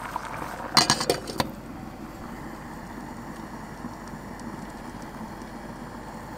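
Pot of rice boiling on a gas stove burner: a quick cluster of metallic clinks about a second in, then a steady hiss of the burner flame and bubbling water.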